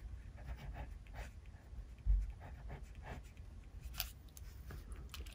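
Ballpoint pen writing on paper in short, faint strokes, with one dull low thump about two seconds in.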